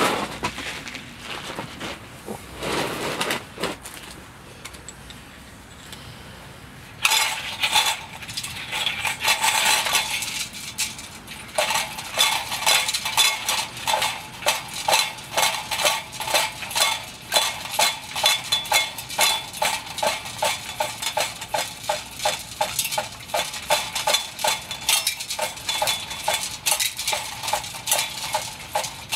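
Built-in hand pump of a brass Takei burner 501A kerosene pressure stove being worked, a quick steady rhythm of clinking metal strokes starting about seven seconds in. It is pressurising the fuel tank up to about 0.15 on its gauge, ready for lighting.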